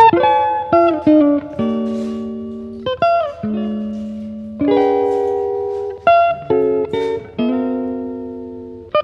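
Background music: a plucked guitar melody of single notes that ring and fade, with a few sliding pitch bends.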